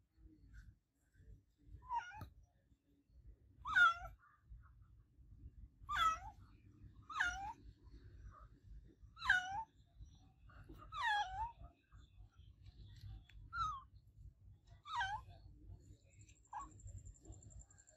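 A cat meowing over and over: about nine short meows, one every couple of seconds, each dropping in pitch at its end.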